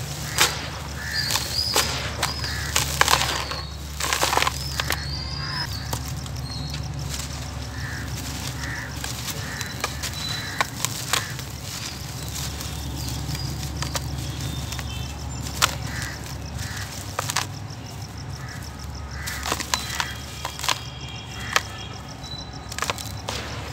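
Dry, gritty dirt crumbled by hand in a plastic tub: clumps crunch and break apart and the dusty grit pours and trickles back down. Irregular sharp crunches come thickest in the first few seconds and are sparser after.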